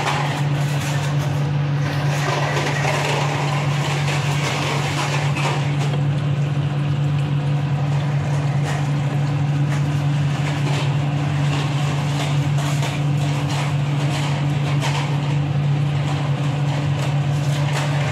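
Sauce bubbling at a simmer in a nonstick frying pan, stirred with a plastic spatula, under a steady low machine hum from a kitchen appliance.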